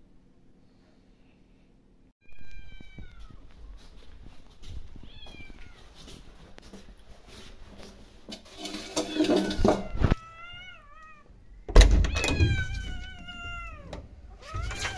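Cats meowing over and over, starting about two seconds in, in a series of long meows that fall in pitch. A few loud knocks break in, the loudest about two-thirds of the way through.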